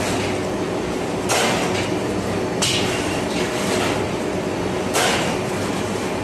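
Bakery dough sheeting machine running with a steady hum, broken by four sudden hissing, clattering bursts that fade away, a second or more apart.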